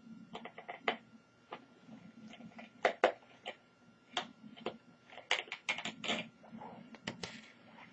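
Irregular small clicks and taps of a screwdriver taking out the two small screws that hold the silver metal shield over the CMOS battery inside a laptop.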